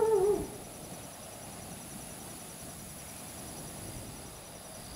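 Faint outdoor background noise with a thin, steady high-pitched hum. A brief wavering voice-like sound comes right at the start.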